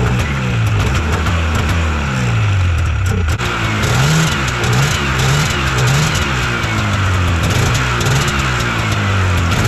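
1997 Yamaha Phaser II snowmobile's fan-cooled two-stroke twin running unevenly, just after catching on the fourth start attempt. A few short revs of the throttle come about four to six seconds in.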